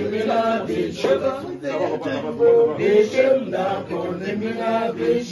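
Male voices singing a chant together, with several held notes and overlapping voices.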